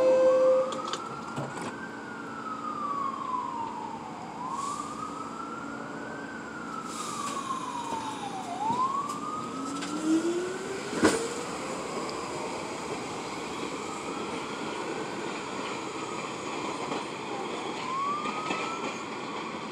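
An emergency vehicle siren wailing, each cycle rising quickly and falling slowly, about every four seconds, over the running noise of a subway train pulling out. The last note of the train's two-tone door-closing chime sounds at the very start, and a sharp click comes about eleven seconds in.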